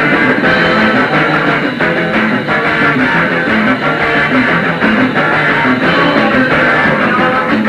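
Live rock band playing, recorded on cassette tape: electric guitars, bass and drums with a steady beat.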